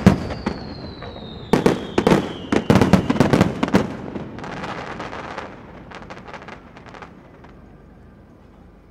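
Aerial fireworks shells bursting in a rapid volley of loud booms, with a thin whistle sliding down in pitch over the first few seconds. A dense crackling follows about halfway through, then the bangs thin out and fade.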